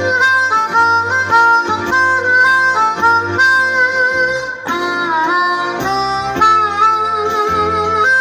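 Harmonica played cupped against a handheld microphone, carrying a sustained melody note by note, with a bent, wavering note about five seconds in. A backing track with a bass line plays underneath.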